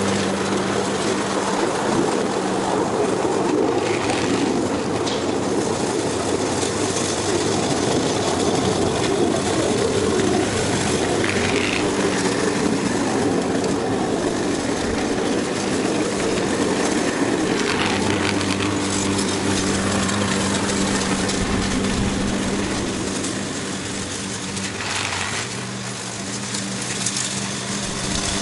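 Gas walk-behind push mower engine running steadily while mowing grass, dipping a little in level late on and coming back up.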